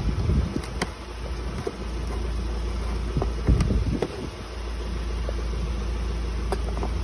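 Plastic AdBlue filler cap being unscrewed and lifted off by hand: a few light clicks and a cluster of handling knocks a little past the middle, over a steady low rumble.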